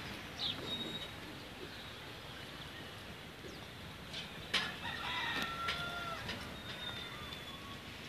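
Chickens clucking, with a rooster crowing about halfway through, over small birds chirping.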